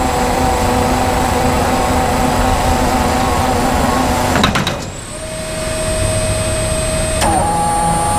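Flexarm hydraulic tapping arm driving an inch-and-a-half tap into steel, a steady machine whine with several held tones. About four and a half seconds in there is a sharp clack and a brief drop, then the whine returns at a different pitch.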